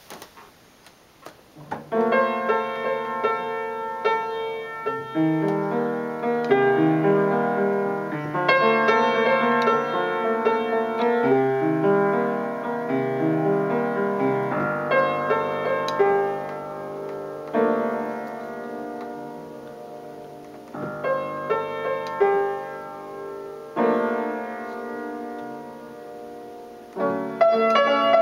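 Old, out-of-tune upright piano played solo, starting about two seconds in, with chords and a melody that swell and fade in phrases.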